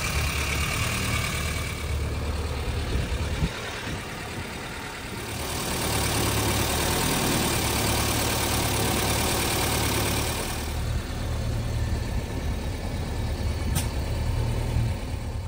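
1972 MG Midget's 1275 cc A-series four-cylinder engine idling steadily, its level shifting at a few cuts. A single sharp click near the end.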